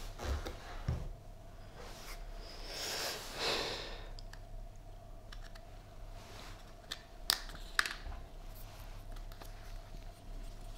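Handling noises from an unboxing: a short rustle about three seconds in and scattered clicks, the two sharpest about half a second apart past the middle, over a steady faint hum.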